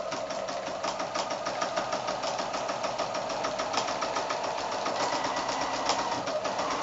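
Domestic sewing machine running steadily through quilt layers, sewing a straight line of quilting with a fast, even clatter of needle strokes.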